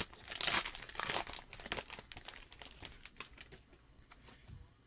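Foil wrapper of a 2019 Certified Football trading card pack being torn open and crinkled by hand, a dense crackling that thins out and fades over the last second or so.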